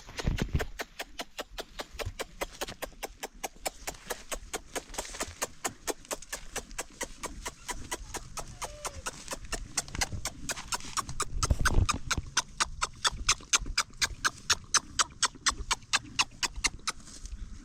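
A fast, even series of sharp clicks or knocks, about four a second, keeping a steady rhythm throughout.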